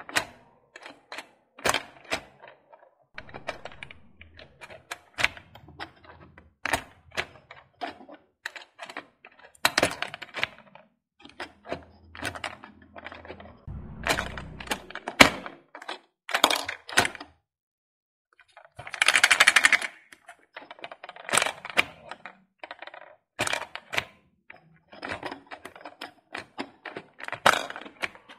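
Plastic buttons and claw mechanism of a small toy ball claw machine clicking and knocking over and over as it is played, with small plastic balls clattering and dropping into the prize tray. A longer rattle comes about two-thirds of the way in.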